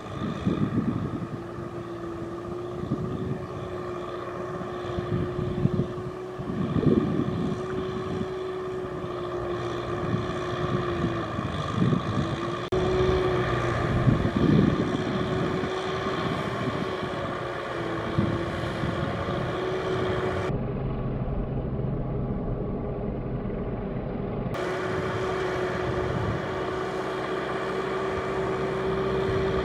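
Tractor diesel engine running steadily under load while ploughing through deep, wet mud, with a few brief louder crackling moments.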